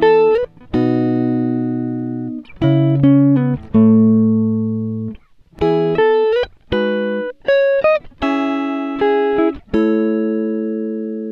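Background music: plucked notes and chords, each starting sharply and ringing out as it fades, a few of them sliding in pitch.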